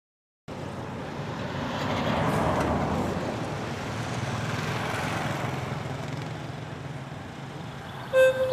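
Road traffic noise with vehicles passing, the noise swelling about two seconds in and again around five seconds, then fading. Near the end a flute starts playing a held note.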